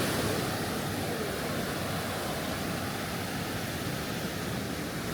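Steady wash of Gulf surf and wind at the shoreline, an even rushing noise with no distinct wave breaks.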